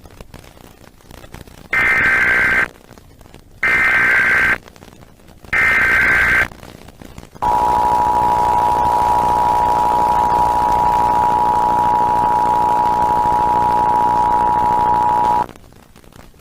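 Emergency Alert System test signal: three short, harsh digital data bursts (the SAME header), each about a second long, then the steady two-note EAS attention tone held for about eight seconds before it cuts off. It is the alert tone that precedes the test message.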